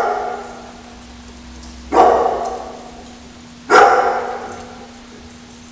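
A dog barking twice in play, single loud barks about two seconds in and again near four seconds, each ringing out with a long echo in a large tiled room. A faint steady hum runs underneath.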